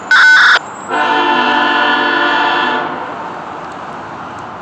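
Locomotive air horn of a BNSF ES44C4 leading the train: a short blast, then a longer one of about two seconds, both sounding a chord of several steady notes.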